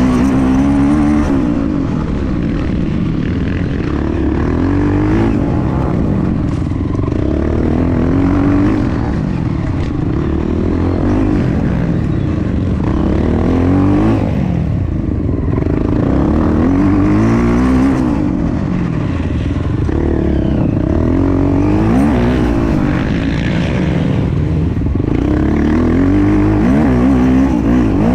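Honda Tornado dirt bike's single-cylinder four-stroke engine under race throttle, its pitch climbing and dropping back over and over as the rider accelerates, shifts and backs off.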